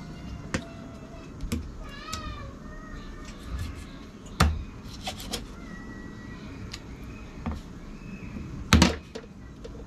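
Kitchen knife chopping a fish into pieces on a cutting board: scattered sharp knocks, the loudest about four and a half and nine seconds in. A cat meows in the background, clearest about two seconds in.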